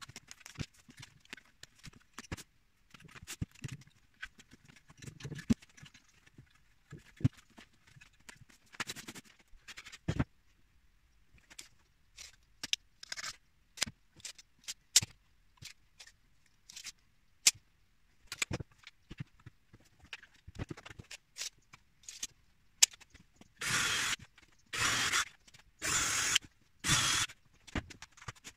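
Scattered clicks and knocks of tools and sapele being handled, then near the end four swishing strokes about a second apart: a hand-held blade taking shavings off the wood.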